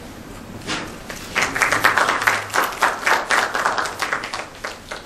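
Audience applauding: many hands clapping start about a second in, build quickly, then thin out and fade toward the end.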